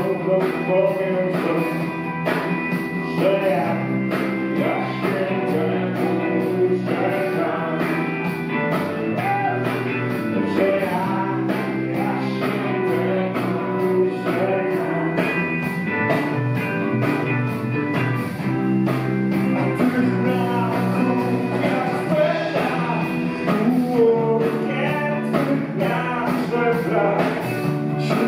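Live rock band playing a song: a man singing into a microphone over electric guitar, bass guitar and a drum kit, with a steady hi-hat beat.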